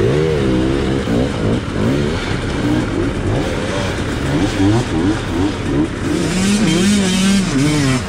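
Yamaha YZ125X's 125 cc two-stroke single-cylinder engine revving, the revs rising and falling again and again. It holds a steady pitch for about a second near the end.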